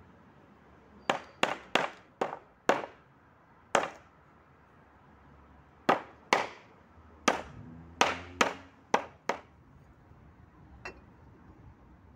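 Steel hammer striking a new oil seal into a truck axle's pinion seal housing, which rests on a wooden pallet: sharp blows with a short metallic ring. There are six blows, a pause of about two seconds, then seven more.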